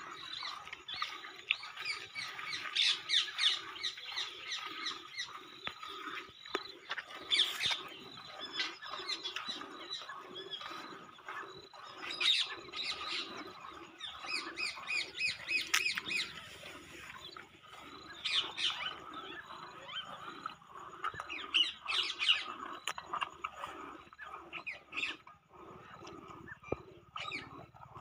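Many birds chirping and calling all through, over a soft, regularly repeating pulse.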